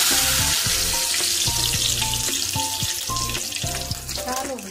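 Mustard seeds frying in hot mustard oil in a small tempering pan, sizzling loudly after being dropped in and easing off a little, with scattered crackles and pops near the end.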